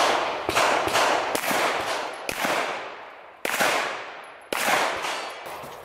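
A string of pistol shots, each followed by a long echo trailing off. The first shots come about half a second apart, the later ones about a second apart.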